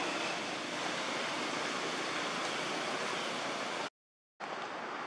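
Steady, even rushing noise with no distinct sounds in it. It breaks off into half a second of complete silence about four seconds in, then resumes.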